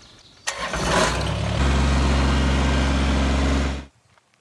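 Kubota BX25D compact tractor's three-cylinder diesel engine being cranked by its starter for about a second, then catching and running steadily. The sound cuts off suddenly near the end.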